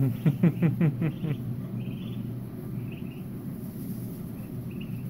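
A quick run of about six loud calls, each falling in pitch, in the first second and a half. Then faint, short, high peeping from ducklings over a steady low hum.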